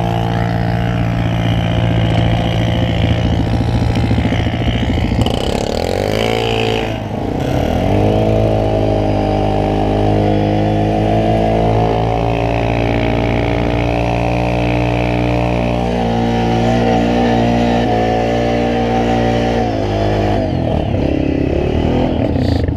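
ATV engine running under load, its pitch dipping and climbing back about six or seven seconds in, then holding fairly steady.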